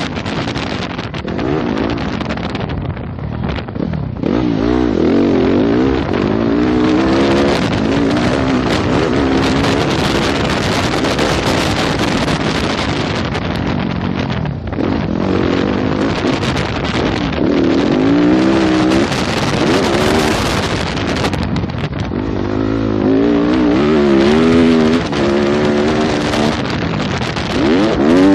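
Yamaha YZ250F motocross bike's four-stroke single-cylinder engine, ridden hard around a dirt track. The engine note climbs and falls repeatedly through the gears, and the throttle is briefly chopped several times, all over a steady rush of wind noise.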